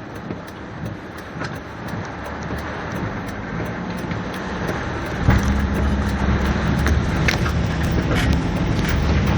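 Car driving in heavy rain: rain noise with scattered sharp ticks over the car's running sound. About halfway through a deep low rumble sets in and the whole sound grows louder.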